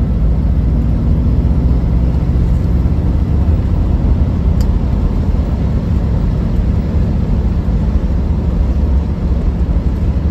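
Triumph Stag's 3.0-litre V8 engine running steadily on the move, heard from inside the cabin together with road noise.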